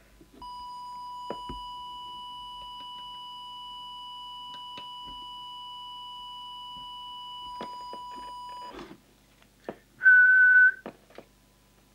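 A steady whistle-like test tone from a small audio oscillator held to a CB radio's microphone, modulating the transmitter while its FM deviation trimmer is turned, with faint clicks through it. The tone stops after about nine seconds; a few clicks follow, then a short, louder, higher-pitched beep near the end.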